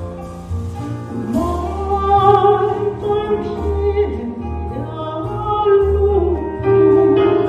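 Live band music: a singer holds long notes with vibrato over a walking bass line.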